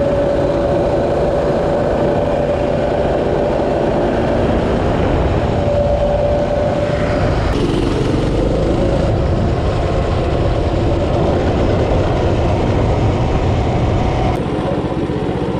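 Go-kart's small engine running steadily under way, with a steady whine through the first half; the sound shifts slightly about halfway through and again near the end.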